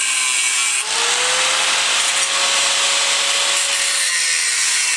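Power tool with an abrasive wheel cutting thin sheet metal on a car's front core support: a steady gritty hiss with a motor whine that rises about a second in, holds, and drops away near the end as the load changes.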